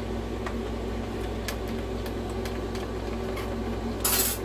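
Steady low electrical hum with a few faint clicks and a short, loud hiss near the end; the original PlayStation 4 gives no beep or fan start, as it still won't power on with its hard drive removed.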